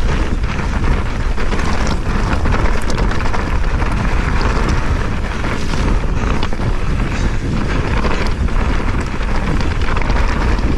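Wind buffeting a helmet-mounted action camera's microphone over the rumble and rattle of a mountain bike's tyres on a loose, stony track at speed. The noise is loud and steady, with many small clicks and knocks from stones and the bike running through it.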